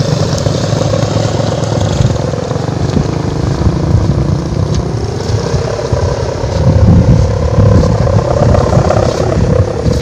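Kite hummer (sendaren) on a large kite giving a steady drone that wavers slightly in pitch as the line is hauled in, over gusty wind buffeting the microphone that grows stronger in the second half.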